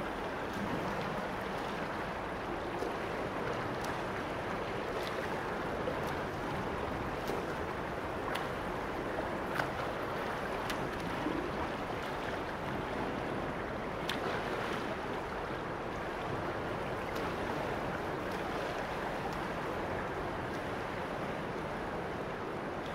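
Steady rush and lapping of water in a shallow pool, with a few small splashing clicks now and then.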